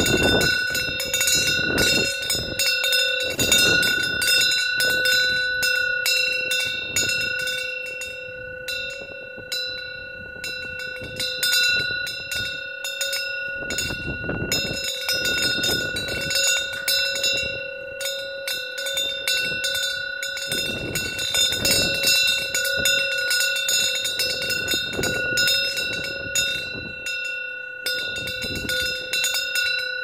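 A Korean eaves wind bell (pungyeong) rings on and on, its clapper swinging and striking again and again in the wind, so that a few steady bell tones hang throughout. Wind gusts rush and surge around it, swelling and easing every second or two.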